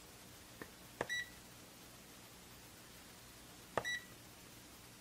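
Kaiweets HT118A digital multimeter's button pressed twice, each press a click followed by a short high beep from the meter confirming the key press. The first comes about a second in, the second near the end.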